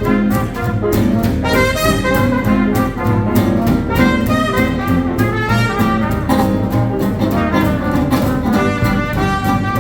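Small hot-jazz band playing a swing tune: horns carry the melody over walking double bass and a steady beat.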